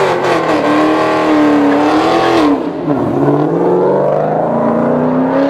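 Dodge Challenger's engine revving hard as it pulls away under full throttle, spinning its rear tyres into a burnout. The revs climb and hold, fall briefly a little past the middle, then climb again.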